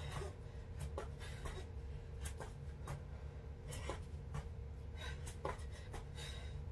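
Feet tapping and scuffing on a foam exercise mat during plank jacks: short, uneven taps about one to two a second. A steady low hum runs underneath.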